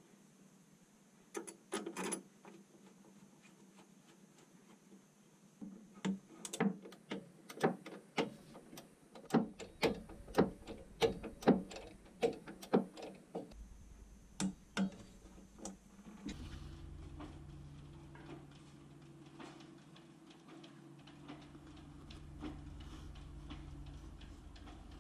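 Socket ratchet wrench clicking in short irregular runs as the nuts on a Sidepower bow thruster's motor bracket are tightened. A steady low hum takes over in the last several seconds.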